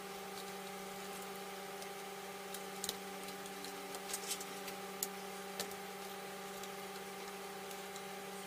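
Scattered small clicks and taps, about eight over a few seconds, of plastic laptop parts and tools being handled during disassembly, over a steady electrical hum.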